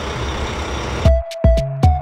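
Steady truck-engine noise that cuts off abruptly about a second in, giving way to electronic music with a kick drum about three beats a second under a held synth note.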